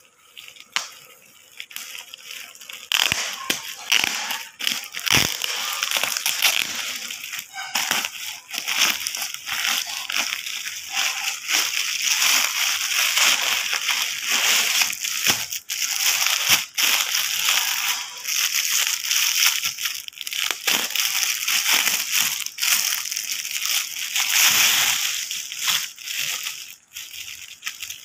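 Plastic courier mailer and clear plastic wrapping being handled, crinkling and rustling with many sharp crackles. Soft for the first few seconds, then loud and continuous until just before the end.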